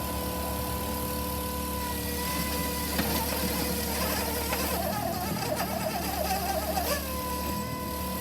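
Mammut SK650 electric skid steer working its bucket against a big limestone rock: a steady electric whine over a low hum. In the middle the whine turns wavering and unsteady as the machine strains, then it settles back to a steady tone near the end. The machine is unable to break out the limestone.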